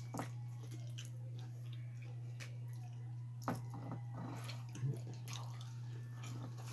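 Faint wet eating sounds: chewing and squishing while eating seafood-boil shrimp, with a couple of sharp clicks, over a steady low hum.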